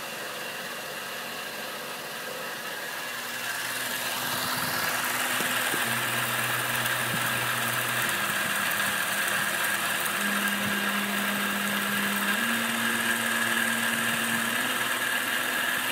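Grizzly G0704 benchtop milling machine, CNC-converted, running its spindle at just over 1,000 RPM while a quarter-inch end mill cuts a circular pocket in polycarbonate, taking 2 mm deep passes. A steady machine noise, with a low hum that changes pitch every few seconds; it grows louder about four seconds in.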